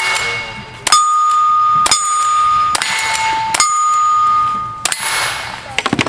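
Cowboy action shooting stage: gunshots about a second apart, each followed by the ring of a steel target, the ring alternating between a lower and a higher pitch as two plates are hit in turn. Near the end come a few quicker shots close together.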